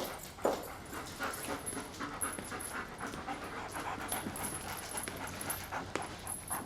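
Drug-detection sniffer dog panting, a quick irregular run of short breaths.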